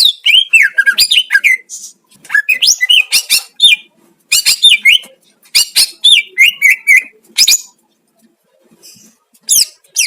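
Cucak ijo (green leafbird) singing a loud, fast song of varied gliding whistles and chirps, in bursts of one to three seconds, with a pause of about two seconds before a last short burst near the end.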